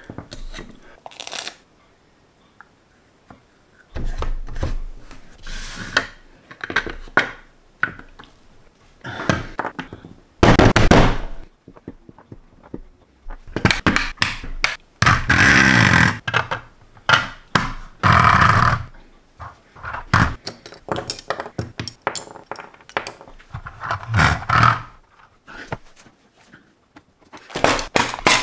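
LEGO plastic bricks and parts being pressed together with a fist against a tabletop: irregular thunks, clicks and plastic scraping, with several longer scraping stretches about halfway through.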